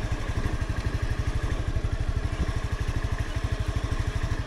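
Vehicle engine running at low speed, a steady, rapid, even pulsing beat with most of its weight in the low end.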